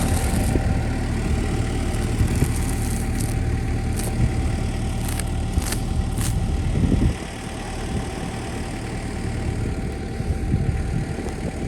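Kubota diesel tractor engine idling, with a steady low rumble that drops off suddenly about seven seconds in, and a few short scraping clicks in the middle.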